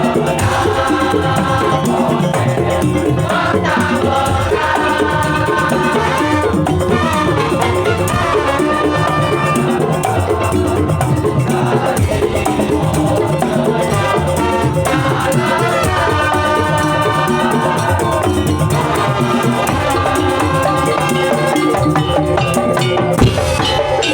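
Madurese daul (tongtong) percussion ensemble playing a piece: a steady, dense beat of drums and rattling percussion under a pitched melody line, loud and continuous.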